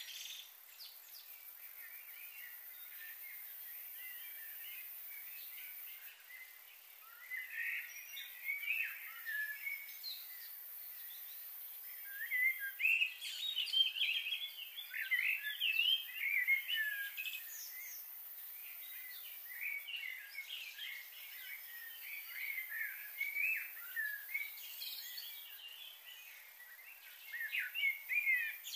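Several small birds chirping and calling in quick, short, gliding notes, coming in irregular bursts, busiest about halfway through and again near the end.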